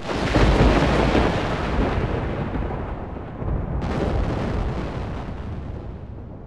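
Thunder: a sudden clap that rolls into a long low rumble, with a second crack about four seconds in, then slowly fades.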